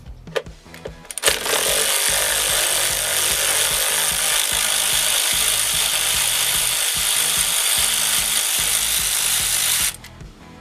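A loud, steady rushing noise that starts about a second in and cuts off abruptly near the end, over background music with a steady bass.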